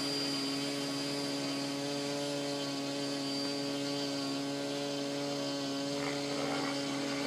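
Gaui X5 electric RC helicopter flying high overhead: a steady hum of motor and rotors holding one pitch.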